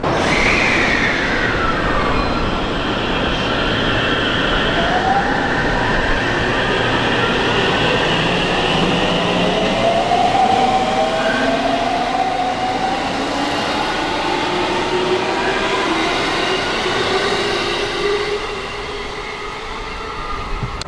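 JR Central 313-series electric train pulling out of the station and accelerating past. Its motor whine rises in pitch through several tones over the rumble of wheels on rail, then eases off as the last cars go by.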